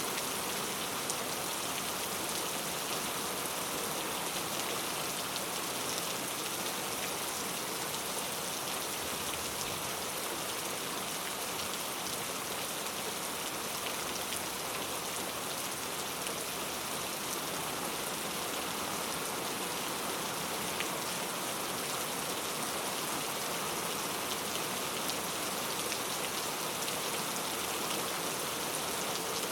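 Steady rain falling, an even hiss with scattered soft drop ticks.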